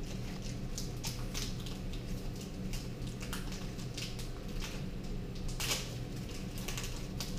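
Foil booster-pack wrappers crinkling and trading cards being handled, in short irregular rustles over a steady low hum.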